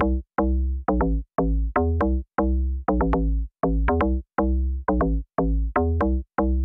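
Electronic intro music: a drum-machine beat of punchy bass-heavy hits, about two a second.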